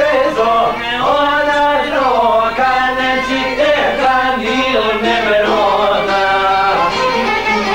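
Male voices singing an Albanian folk song with instrumental accompaniment, the melody sliding and wavering between notes.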